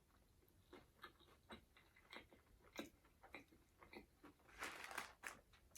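Close-miked chewing of fast food: faint, irregular wet mouth clicks and crunches, a little louder about five seconds in.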